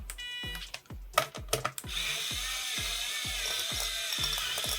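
Electric precision screwdriver: a short high beep, a few clicks, then from about two seconds in its small motor whirring steadily with a slightly wavering whine as it drives a screw at its 0.35 N·m torque setting.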